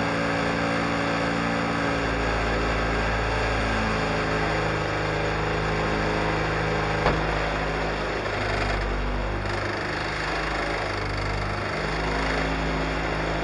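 Rally car engine idling steadily, heard from inside the cabin, with one sharp click about seven seconds in.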